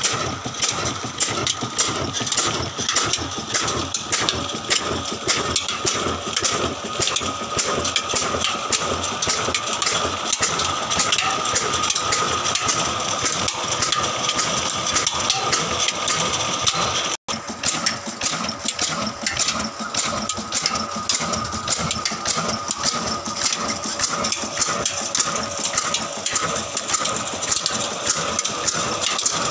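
Old black horizontal diesel engine running steadily with a fast, even clatter, driving a flat belt to a water pump over a well. The sound breaks off for an instant a little past halfway.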